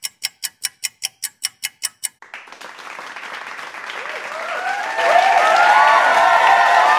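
Clock ticking fast, about five ticks a second, stopping about two seconds in. Then applause and crowd cheering swell up, loudest from about five seconds in.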